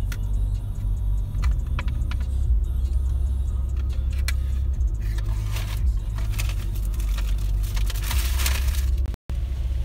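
Steady low road rumble inside a car's cabin at highway speed, with scattered light clicks and rattles. From about halfway a rustling hiss rises over it, and the sound drops out for an instant near the end.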